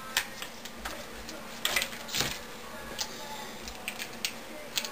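Hands peeling white filament tape and plastic wrapping off a LiPo battery pack, making irregular clicks and crackles, with a few sharper snaps about a quarter second in, near the middle and near the end.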